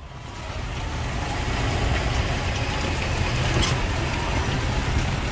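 A vehicle's engine running with a steady low rumble, heard from inside the vehicle, fading in over the first second or so.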